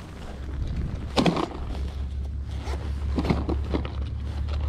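Short scrapes and rustles from handling a tackle bag and a landed northern pike on grass, the loudest about a second in and a few more near three seconds in, over a steady low rumble.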